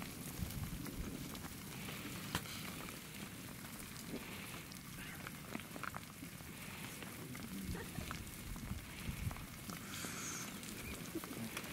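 Advancing lava flow crackling and clinking as its cooling crust cracks and breaks, many small sharp clicks over a low rumble.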